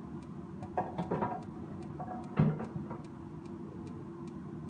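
A faint, regular ticking about two or three times a second over a steady low hum in a kitchen where a pan of sauced chicken wings is cooking. A brief clatter comes about a second in, and one sharp knock, the loudest sound, about two and a half seconds in.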